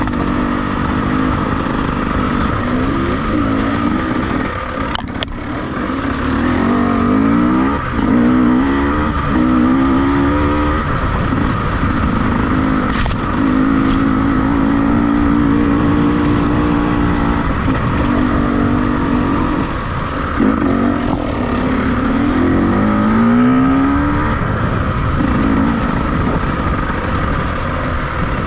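Off-road vehicle engine running under load, its pitch climbing and dropping again and again as it revs, over a steady rushing noise. Two sharp knocks come about five and thirteen seconds in.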